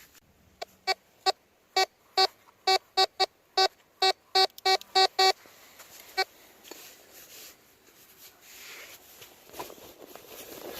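Tesoro Mojave metal detector sounding a run of short, same-pitched electronic beeps as its coil passes over a buried target: about fifteen beeps in five seconds, then one more a second later. Faint rustling follows.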